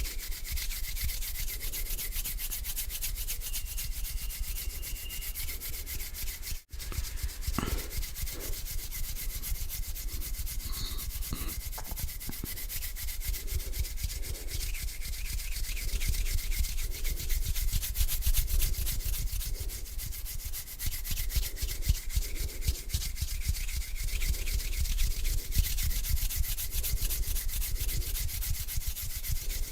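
Slow hand rubbing, palms brushing against each other in a dense, continuous swishing, with a very brief break about seven seconds in.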